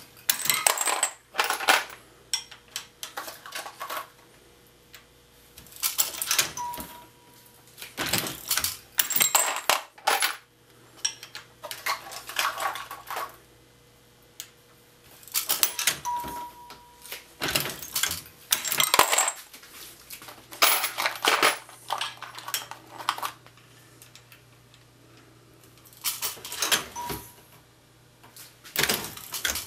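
Lee Loadmaster progressive reloading press being cycled through .223 rounds: metallic clanks and clicks from the handle strokes and the turning shell plate, with brass cases and loaded cartridges clinking as rounds are ejected into the bin. The clatter comes in bursts every few seconds.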